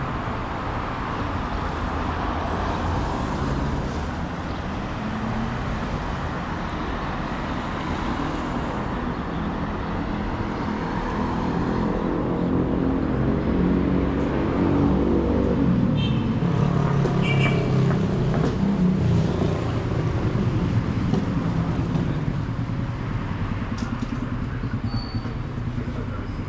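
City street traffic: a steady wash of passing cars, with one vehicle's engine droning louder as it passes, loudest about halfway through, then fading.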